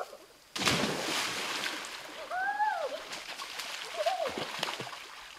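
A person plunging into a river with a loud splash about half a second in, then water sloshing and settling. A voice gives two short rising-and-falling cries partway through.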